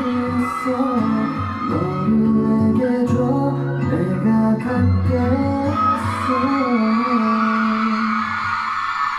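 Pop song from a live stage performance: male vocalists singing over a band backing with guitar and bass.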